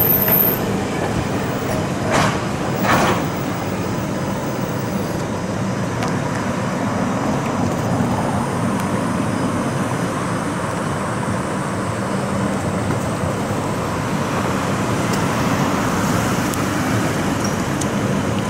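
Streetcar running on its rails: a steady rumble with a low hum throughout and two short knocks about two and three seconds in.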